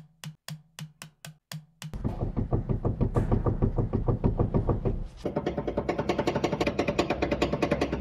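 Worn steering tie rod (inner tie rod) knocking at its damaged joint as the steering linkage is worked: evenly spaced knocks about four a second, then from about two seconds in a faster, denser clatter of knocks over a low rumble.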